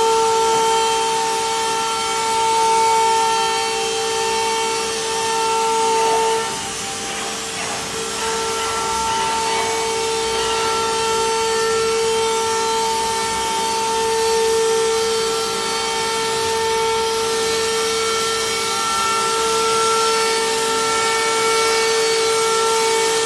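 Multi-spindle CNC router running, its high-speed spindle motors giving a steady high whine over a rushing noise as it cuts round holes in an aluminium composite panel. The whine breaks off briefly about six and a half seconds in, then resumes.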